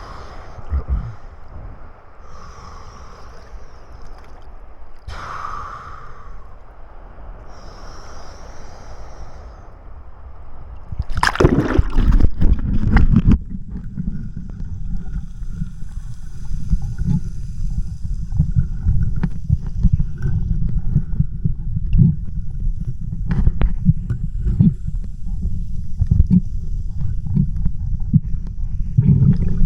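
Rough seawater sloshing and churning around a camera held at the surface by a swimmer. A sudden loud rush of a wave comes about 11 seconds in, and a heavier, steady low churning follows.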